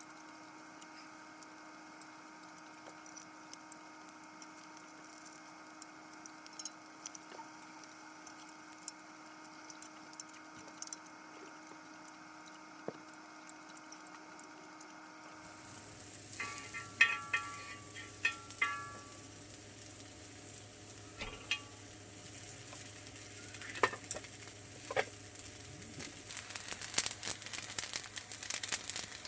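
Food sizzling in a pan, with a few sharp clinks of utensils over the second half and denser crackling near the end.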